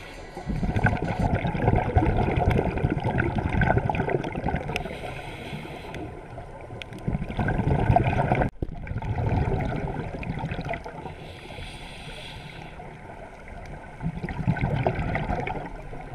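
Muffled underwater gurgling of a scuba diver's exhaled bubbles, coming in long surges several seconds apart with quieter stretches between them.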